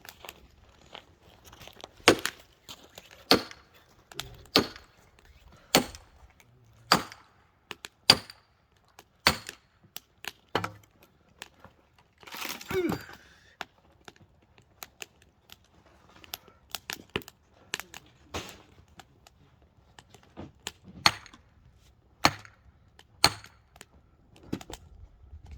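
Hard firewood being chopped: a series of sharp blows about one to one and a half seconds apart. A longer rasping, cracking sound comes about twelve seconds in.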